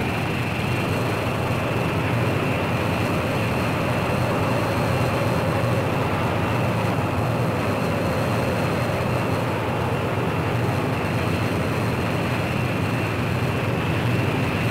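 Rocket engine firing on a static test stand: a steady, unbroken rush of noise that holds an even level throughout.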